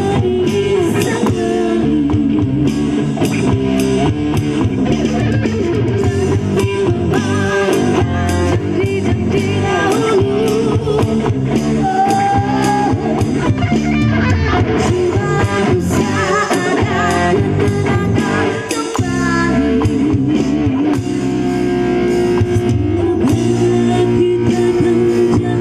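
Live band playing with guitar and drum kit, possibly with a voice singing over it. The level dips briefly about three-quarters of the way through.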